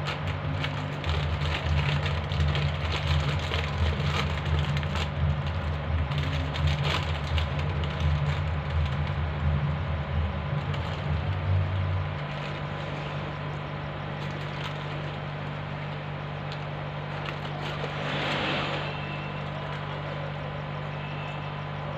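Crinkling of a plastic snack packet being torn open, then crunching of chips being bitten, heard as many sharp crackles over a low steady hum. The deepest part of the hum stops about halfway through, and the crackling dies down with it.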